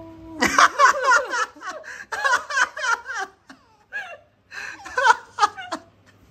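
A person laughing heartily in quick repeated "ha-ha-ha" bursts, starting about half a second in and coming in three rounds with short breaks between.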